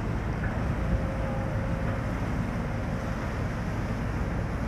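Steady low rumble of a 175 m chemical tanker passing close by under way, with wind buffeting the microphone.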